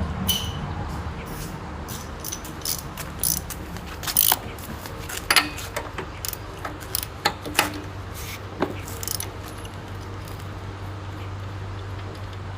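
Scattered metallic clinks and rattles of hand tools on a small engine: a spark plug socket and wrench being fitted and worked, with the clinks thinning out after about nine seconds. A steady low hum runs underneath.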